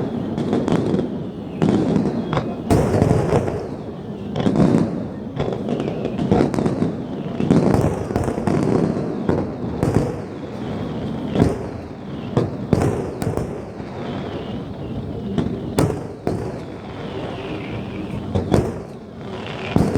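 Fireworks display: a rapid, continuous succession of shell bursts, with sharp bangs over an unbroken rumble and crackle, several bangs standing out louder than the rest.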